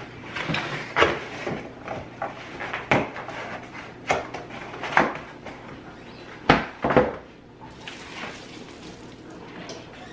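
Large cardboard pizza box being handled and opened and the pizza slid out of it: a series of knocks, scrapes and cardboard rustles, the loudest pair about six and a half and seven seconds in.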